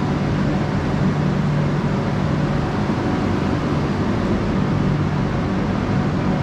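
Steady traffic and vehicle noise with a low, even engine hum underneath.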